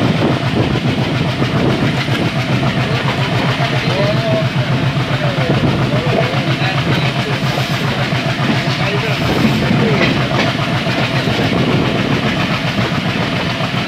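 ALCO diesel locomotive chugging under power as the train gathers speed, a steady rapid exhaust beat, with carriage wheels clattering on the rails.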